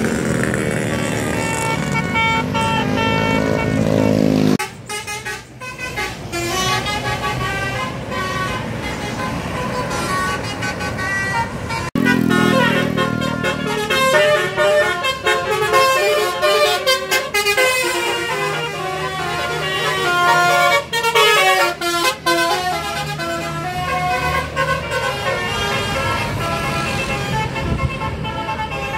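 Indonesian bus 'telolet' basuri horns playing quick tunes, one stepped note after another, over a bus engine running. The sound cuts off abruptly twice, at about four and a half seconds and again at about twelve seconds, each time jumping to another horn.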